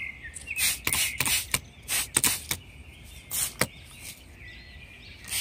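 Hand-held trigger spray bottle squirting: a quick run of short hissing sprays, then a pause of about a second and another squirt near the end.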